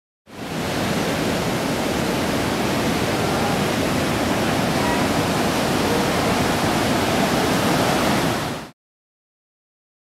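Heavy ocean surf breaking: a steady, loud rush of crashing waves and whitewater. It comes in just after the start and cuts off abruptly near the end.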